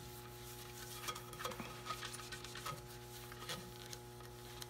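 Paper towel rubbing over the polished finish of a wooden half-hull model: faint, irregular rubbing and light scuffs over a steady electrical hum.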